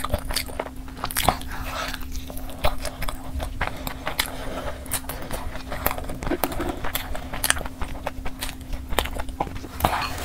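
Close-miked biting and chewing of sauce-coated fried chicken, heard as a run of irregular sharp clicks and smacks.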